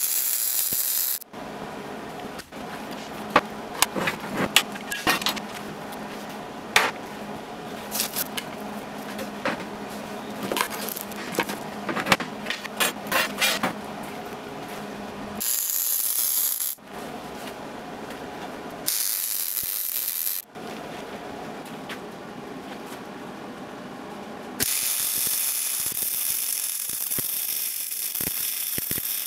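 MIG welder arc crackling and sizzling in several separate runs as the sleeved steel halves of the tube drop axle are butt-welded together. Between the first short run and the later ones comes a long stretch of irregular scraping and knocks from hand work on the axle joint.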